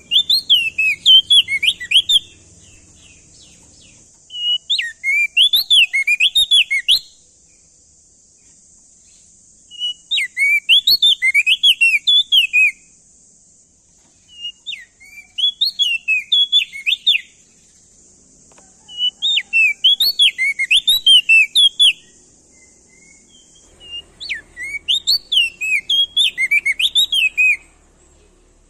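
A prenjak daun songbird singing loudly in repeated bouts. Each phrase is a rapid run of eight to ten sweeping whistled notes lasting two to three seconds, with a short pause of a couple of seconds between bouts. A steady high hiss runs underneath.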